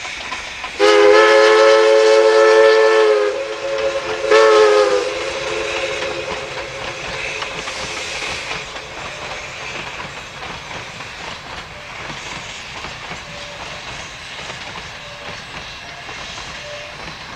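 Cumbres & Toltec narrow-gauge steam locomotive sounding its whistle: one long blast, then a short one about four seconds in. After that comes the steady rumble and clatter of the train running past.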